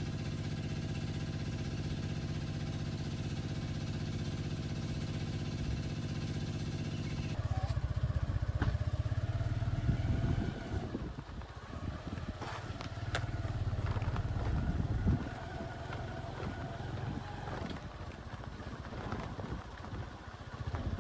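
An engine running at a steady speed, then after an abrupt cut about seven seconds in, a louder, uneven rumble with a few sharp ticks.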